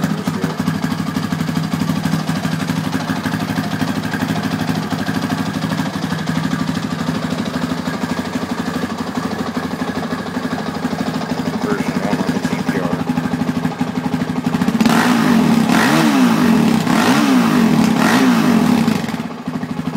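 2006 Honda CRF450X single-cylinder four-stroke dirt bike engine idling steadily, then blipped a few times in quick succession near the end, each rev rising and falling before it settles back to idle. It revs cleanly without backfiring, its fuel screw freshly readjusted to cure a hesitation and backfire problem.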